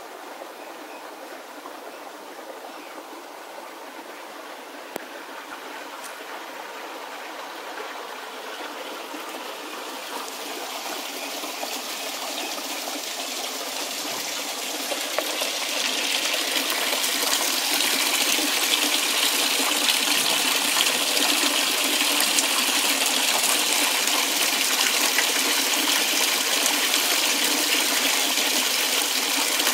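Water running over a canal lock's bywash weir and along its brick-lined outfall channel: a steady rushing that grows louder through the first half, then holds.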